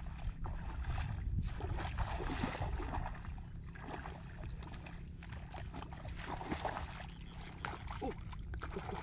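Bare feet wading and sloshing through shallow muddy water in irregular splashes, over a steady low rumble.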